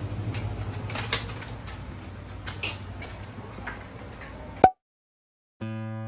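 Covered shopping arcade ambience: a low steady hum with a few scattered clicks and taps, cut off by a sharp click about four and a half seconds in. After a second of silence, acoustic guitar music starts near the end.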